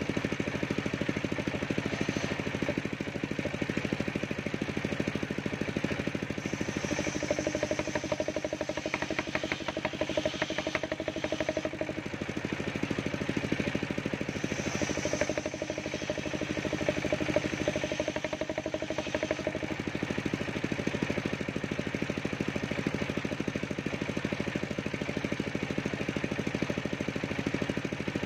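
Engine-driven circular saw bench running steadily. Its note changes twice as planks of waru (sea hibiscus) wood are pushed through the blade: once about a quarter of the way in and again just past the middle.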